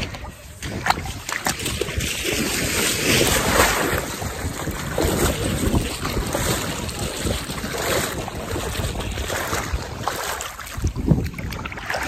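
Rushing noise of wind buffeting a phone's microphone, mixed with water sloshing around waders standing in a river.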